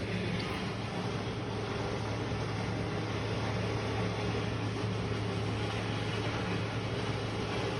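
A loud, steady low hum over a rushing noise from an unseen source, possibly mechanical, unchanging throughout.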